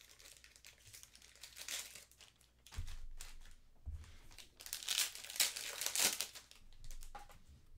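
Plastic card sleeves and their packaging crinkling and tearing as a new pack of sleeves is opened and handled, in irregular rustles with two dull knocks against the table about three and four seconds in.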